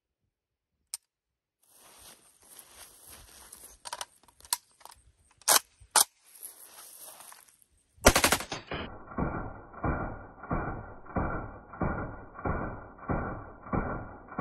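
Gunfire: a few sharp cracks over a faint hiss, then a very loud burst of automatic fire about eight seconds in. It runs on as a deep, muffled, even pulse of about two shots a second, machine-gun fire played back slowed down.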